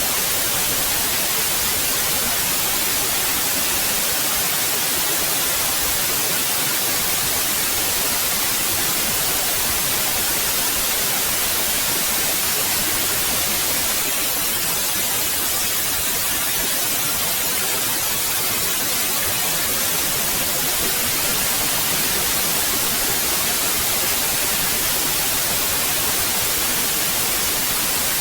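Steady, unbroken white noise: an even hiss with no changes.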